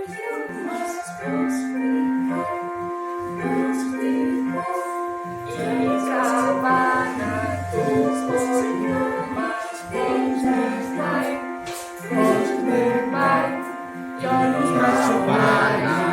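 Music with a group of voices singing over instrumental accompaniment.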